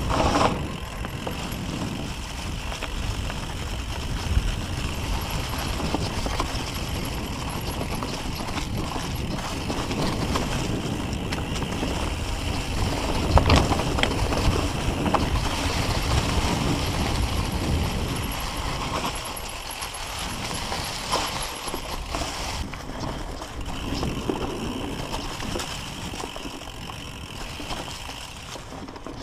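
Mountain bike rolling fast over a dirt trail thick with dry fallen leaves: the tyres crunch through the leaves, and the bike rattles and knocks over bumps, with one louder knock about halfway through.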